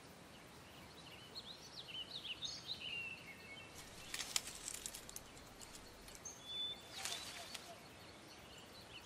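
Small birds chirping faintly in the background, and dry leaves crackling in two short bursts, about four seconds in and again near seven seconds, as a garter snake pushes its way out of its den through the leaf litter.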